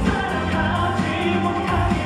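Live pop music: a male singer's voice into a microphone over a loud backing track with a steady bass line.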